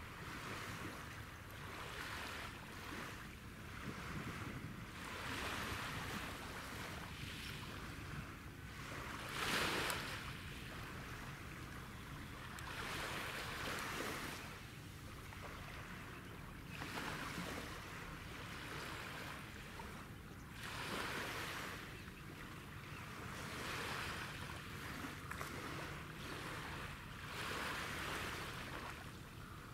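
Small waves washing at the shoreline, the wash swelling and fading every couple of seconds over a steady low rumble, with one louder surge about ten seconds in.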